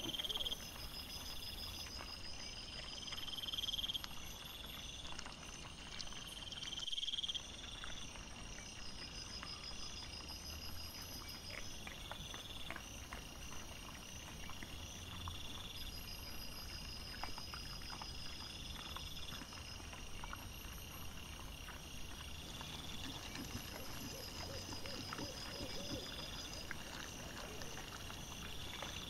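Night insects chirping in a regular repeating pattern over the hiss of a trail camera's microphone, with faint rustling and crunching from wild boar foraging in leaf litter. The sound jumps abruptly a few times where short recordings are joined.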